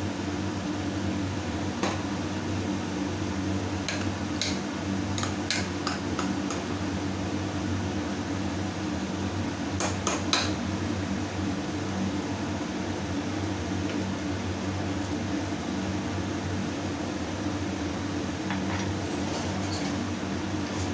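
Steel ladle stirring curry in an open pressure cooker, clinking and scraping against the pot with scattered sharp metal clicks, loudest about halfway through, over a steady low hum.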